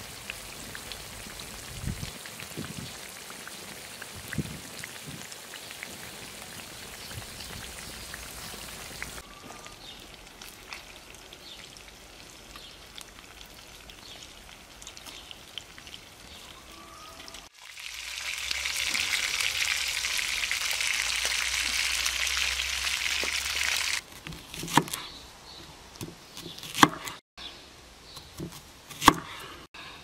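Fish frying on a hot iron sadj griddle over a campfire, sizzling. The sizzle is quieter with small crackles at first, then loud and steady for about six seconds past the middle, and a few sharp knocks and clicks come near the end.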